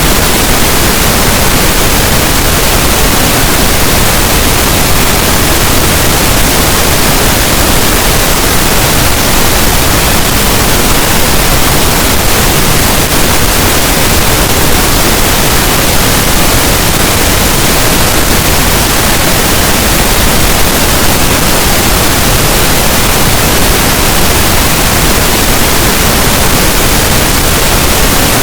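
Continuous, unchanging pink noise: an even, loud hiss spread across all pitches, with nothing else in it.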